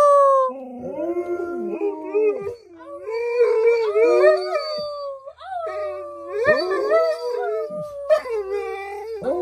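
Alaskan Malamutes howling: long calls that rise and fall in pitch, two voices often overlapping, with short breaks between calls. The first call, right at the start, is the loudest.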